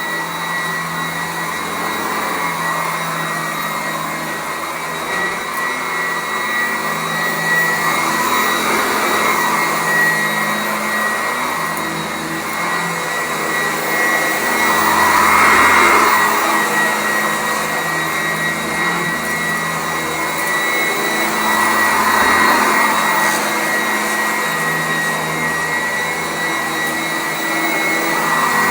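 Sanitaire SC899 commercial upright vacuum cleaner running on carpet: a steady high whine over the rush of its airflow, which swells louder and eases off several times as it works the floor.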